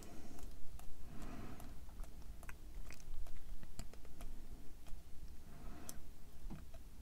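Small precision screwdriver tightening tiny screws into a plastic scale-model front fork: irregular light clicks and ticks from the tool and the plastic parts being handled.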